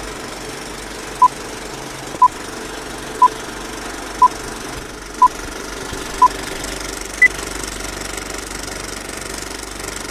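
Film-leader countdown over a running film projector's steady clatter: a short beep every second, six at one pitch and a seventh, higher beep about seven seconds in.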